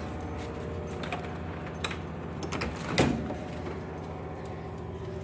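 A door being opened to go out: small clicks and handling knocks, with one louder knock and scrape about three seconds in, over a steady low hum.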